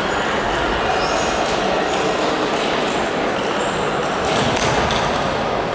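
Table tennis hall ambience: steady hall noise with some voices, and a few sharp clicks of ping-pong balls from play at a nearby table, plus brief high squeaks.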